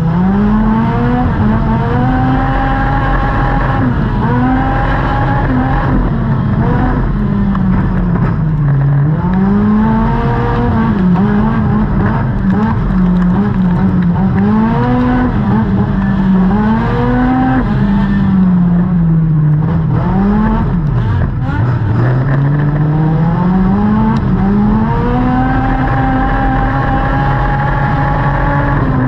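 Dirt-track race car's engine heard from inside the cockpit, revving up on the straights and easing off into the turns, its pitch rising and falling lap after lap.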